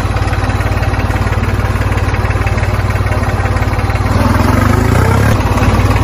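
Small motor of a homemade toy tractor running with a fast, even rattle as it pulls a cultivator attachment through soil; it grows a little louder past the middle.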